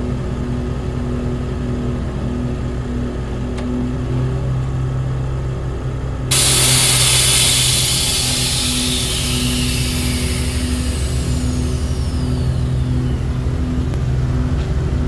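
Pickup engine running steadily with a low hum. About six seconds in, a sudden loud hiss of air dumping from the air-suspension bags starts, then slowly fades with a falling whistle as the truck settles low.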